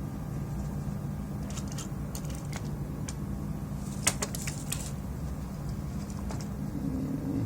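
Steady low hum with scattered light clicks and taps, and one sharper click about four seconds in.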